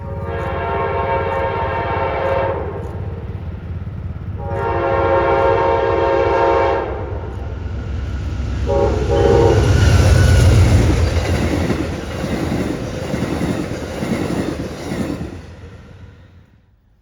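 Train horn sounding two long blasts and a short third one as a train approaches, then the train running past with a loud rumble of wheels on rail that fades out near the end.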